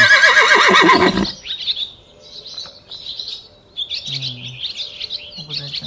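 A horse whinnies loudly for about the first second, a high quavering call that falls in pitch. Then small birds chirp and twitter on and off through the rest.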